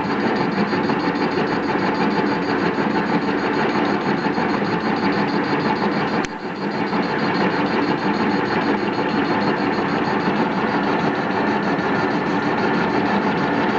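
Metal lathe running under cut, facing the end of a large steel blank: a steady machine hum with several steady tones over a cutting noise, broken by a short click and brief dip about six seconds in.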